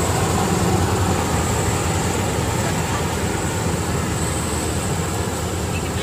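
FMWorld rice combine harvester running steadily as it cuts through standing rice, a deep continuous engine drone that slowly fades as the machine moves away.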